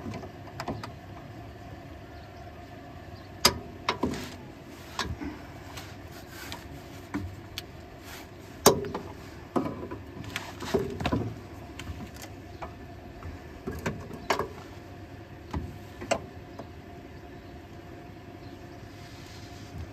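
Scattered metal clinks and knocks as a Milwaukee tool is worked up into the cramped space under the front suspension, bumping against the chassis while trying to reach a nut. Over a steady low hum.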